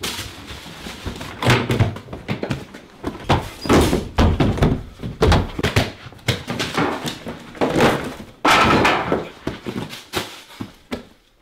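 A run of loud crashes and thuds, one after another: freight locomotives slamming into trucks and trailers at grade crossings.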